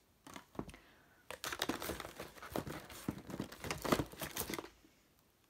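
Packaging crinkling and rustling, with light knocks of cardboard boxes, as hands rummage through a box of wrapped cosmetics. The crackling thickens about a second in and stops near the end.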